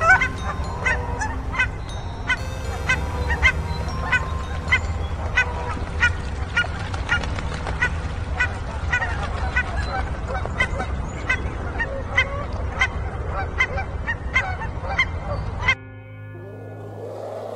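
Duck quacking in a steady series of short calls, about three every two seconds, over a low rumble. The calls stop abruptly about two seconds before the end, leaving a quieter low sound.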